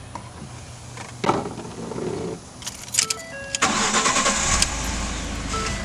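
2011 Ford F-150 engine cranking and catching about three and a half seconds in, then settling into a steady idle. Short electronic dash chimes beep a few times around the start.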